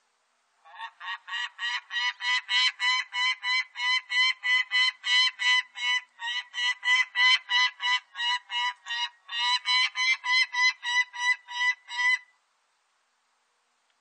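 Peregrine falcon giving its cackling call: a long, even run of repeated notes, about three a second, starting about half a second in and stopping abruptly after about eleven seconds.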